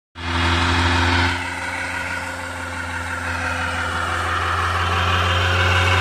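Tofaş Doğan SLX engine held at high revs in a burnout, its rear tyre spinning and squealing on the road surface. The sound dips a little about a second in, then builds steadily.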